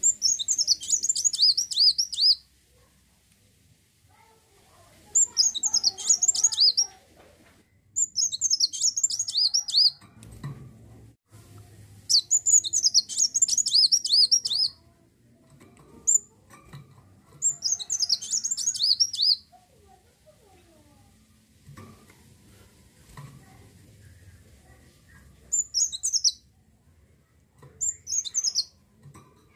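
Kolibri wulung sunbird singing: bursts of rapid, high-pitched twittering notes about two seconds long, repeated every few seconds, with shorter snatches near the end.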